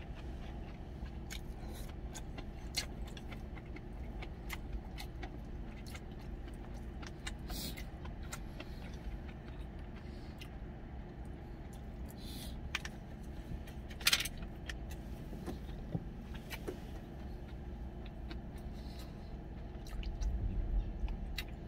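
Eating at a meal: a spoon and chopsticks clicking and scraping against a stainless steel rice bowl, scattered sharp clinks with one louder clink about two-thirds of the way through, over a steady low hum in the truck cab.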